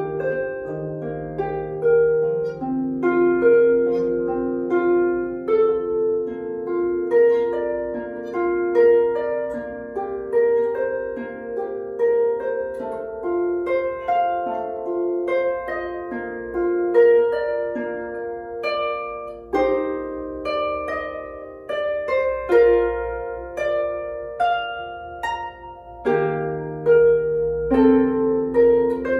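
Solo harp played by plucking: a flowing, continuous run of notes that ring on after each pluck, over deep bass notes held at the start and again near the end.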